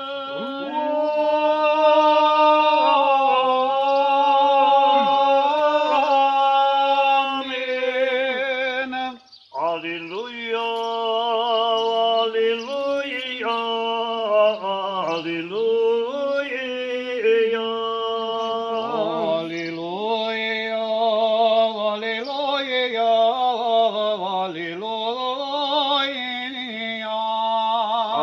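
Men chanting an unaccompanied Orthodox memorial-service hymn in Romanian, with long held notes. The chant breaks off briefly about nine seconds in and resumes, a steady low note held beneath the moving melody.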